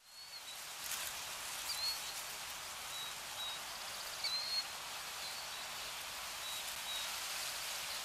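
Nature ambience under the closing graphic: a steady rushing hiss with a small bird giving short, high chirps every second or so.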